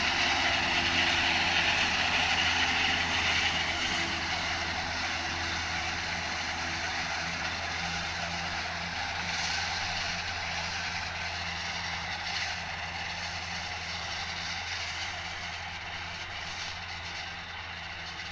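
McCormick MTX tractor mowing grass with a Fella disc mower: a steady low engine hum under a dense hiss of the spinning mower discs, fading gradually as the tractor moves away.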